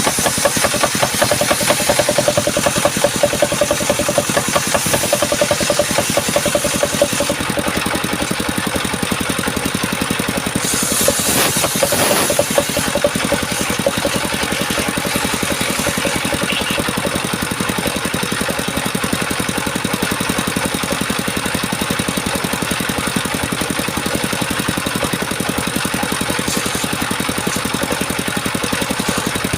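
Engine driving a homemade circular-saw sawmill, running steadily with a fast, even beat, and a brief harsher stretch about eleven seconds in.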